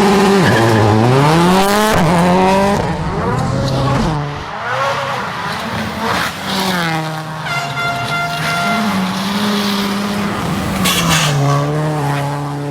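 Subaru rally car engine revving hard, its pitch climbing and dropping again and again as it runs through the gears. A few sharp cracks cut in along the way.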